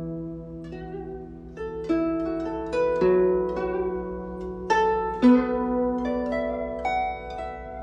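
Solo guzheng playing a slow melody: single plucked notes and small clusters, several a second, each ringing on over held low notes, with one note sliding down in pitch near the end.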